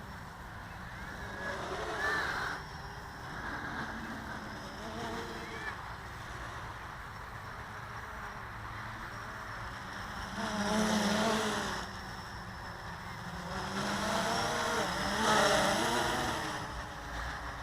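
Blade 350 QX quadcopter's electric motors and propellers whirring in flight, the pitch wavering up and down as the throttle changes, with louder surges about two, ten and fifteen seconds in.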